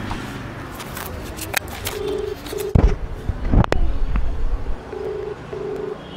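A bird cooing twice, each time a pair of short, low coos about three seconds apart, with two sharp knocks in between over a steady street background.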